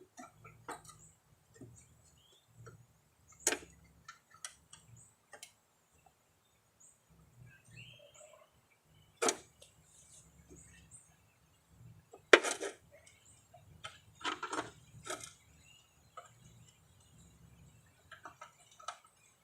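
Scattered clicks, taps and knocks of hand tools and mower-deck parts being handled while a spindle is fitted, with a few louder knocks about a third of the way in, around the middle, and a cluster about two-thirds through.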